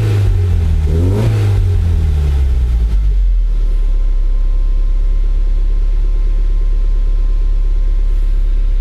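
1993 Toyota MR2 Turbo's 3S-GTE turbocharged four-cylinder, running on a freshly installed MegaSquirt standalone ECU, revved up twice and falling back. About three seconds in it settles to a steady idle at about 1000 rpm.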